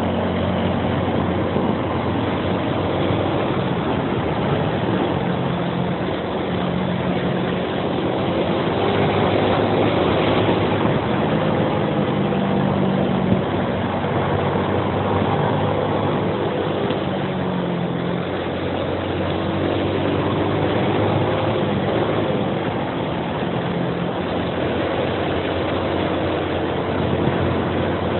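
Suzuki Axelo 125's single-cylinder four-stroke engine running on the move, its note shifting up and down with the throttle, under steady wind rush on the microphone. One sharp click about halfway through.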